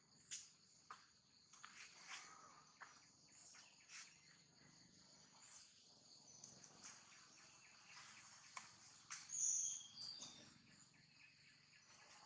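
Faint outdoor ambience: a steady high-pitched insect buzz with scattered small clicks and rustles, and one short, high chirp about nine seconds in.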